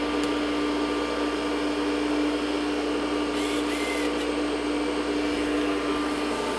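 An IBM XT 5160 running with its case open, the power-supply fan and spinning full-height hard drive giving a steady whirring hum with one constant low tone.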